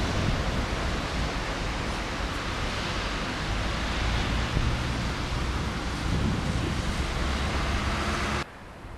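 A train passing through the station at speed: a steady rushing noise with a low rumble, which cuts off abruptly near the end.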